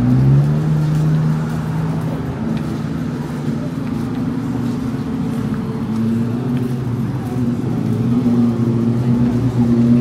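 A car engine running on a busy street. Its pitch rises right at the start, then holds at a steady hum that grows louder again near the end, over the noise of traffic.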